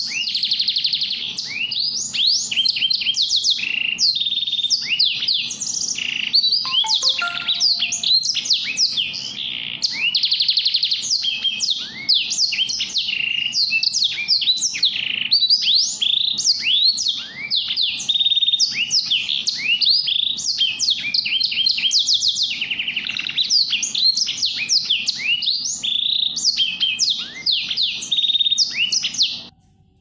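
A small finch singing a fast, continuous song of high chirps and trills. It cuts off suddenly near the end.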